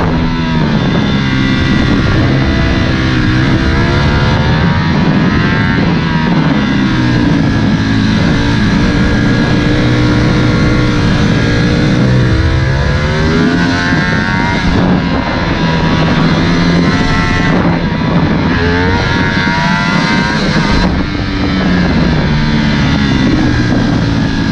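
Ducati Panigale V4 sport bike's V4 engine, heard from onboard, revving hard and rising and falling in pitch over and over as the rider accelerates out of bends and rolls off for the next, with a few brief drops in level where the throttle closes.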